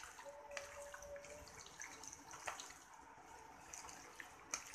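Faint wet squelching and small clicks of a hand kneading raw chicken pieces coated in turmeric and salt in a bowl.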